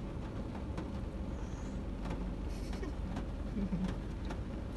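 Steady low hum of a car idling, heard inside the cabin, with scattered light clicks and scrapes of plastic spoons on paper pie wrappers. A brief voice sound about three and a half seconds in.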